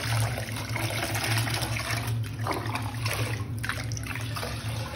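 Water poured from a plastic dipper splashing over a wet dog standing in a bathtub, a steady run of pouring and splashing, with a low steady hum beneath it.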